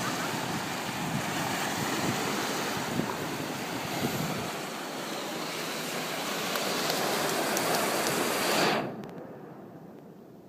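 Ocean surf with wind buffeting the microphone, a steady rush of waves that swells near the end and then stops abruptly about nine seconds in, leaving a much quieter background.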